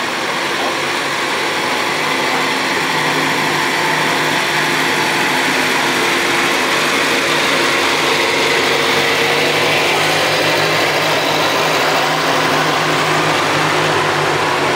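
Engines of vintage fire trucks running at low speed as the trucks drive slowly past close by, a steady hum that grows a little louder over the first couple of seconds.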